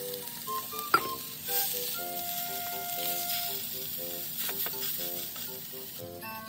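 White fish fillets sizzling as they fry in oil in a frying pan, with a single sharp knock about a second in. Light background music with short plucked-sounding notes plays alongside.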